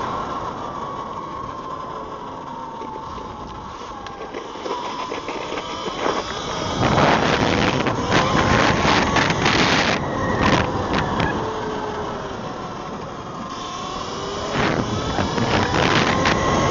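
Eride Pro SS 3.0 electric motorbike on the move: its motor whine glides up and down in pitch as the speed changes. Two long stretches of louder rushing noise come in, about seven and fifteen seconds in.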